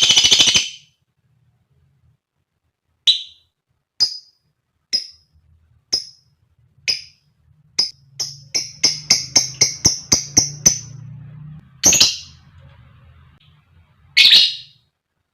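Female lovebird calling: a short chattering burst at the start, then single sharp high chirps about once a second, a quick run of chirps at about five a second, and two loud harsh calls near the end.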